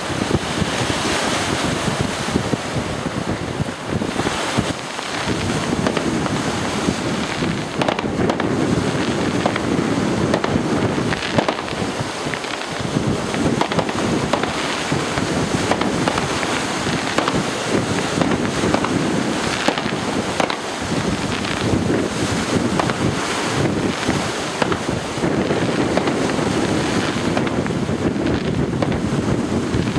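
Wind buffeting the microphone in a steady rush, with a few faint firework bangs now and then.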